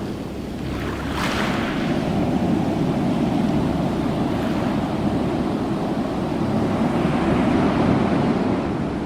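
Ocean surf: a continuous wash of breaking waves, with a brief hiss of foaming water about a second in and the surge building slowly toward the end.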